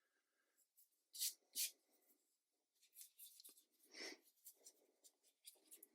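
Scratchy strokes across watercolour paper: two longer strokes a little after a second in, then a quicker run of short strokes from about three seconds on.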